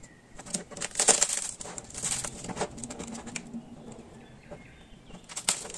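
Crust of a freshly baked yeast loaf crackling and rustling as hands squeeze and pull it apart, in several short crunchy bursts. The loudest burst comes about a second in, with more around two seconds and again near the end.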